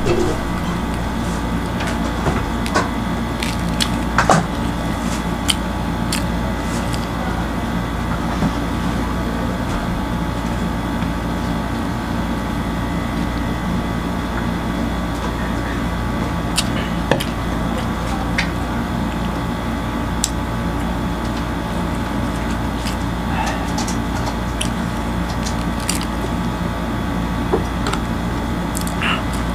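A steady mechanical hum throughout, with scattered soft clicks and crackles from kubos flatbread being torn and eaten by hand.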